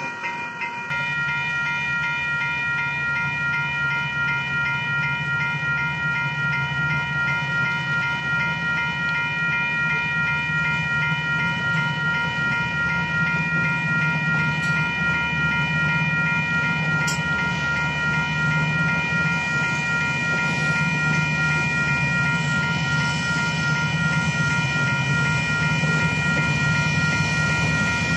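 Freight cars of a slow train rolling through a street grade crossing: a steady rumble with wheel clatter. The crossing's warning bell rings steadily over it.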